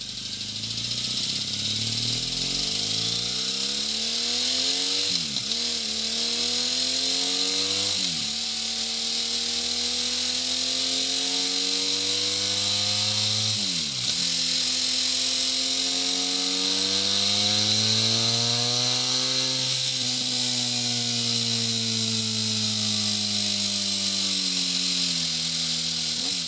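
BMW R1200R's boxer-twin engine accelerating hard through the gears. The exhaust note climbs and drops sharply at three upshifts, about 5, 8 and 13 seconds in. It then rises in one long pull and falls steadily in pitch as the bike eases off. A steady high hiss runs over it.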